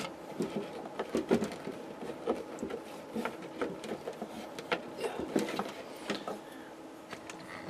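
Cables and plastic connectors of a camera wiring harness being handled: an irregular string of small clicks, taps and rattles over a faint steady hum.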